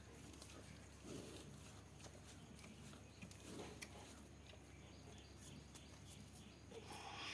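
Near silence with a few faint soft knocks and rustles scattered through it.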